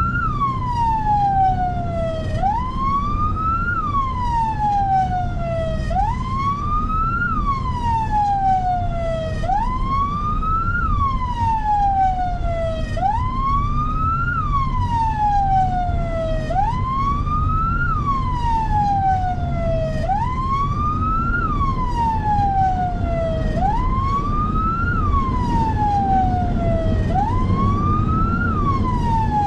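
Emergency vehicle siren sounding a slow wail: the pitch rises quickly, then falls slowly, about once every three and a half seconds. A steady low rumble of vehicle and road noise runs underneath.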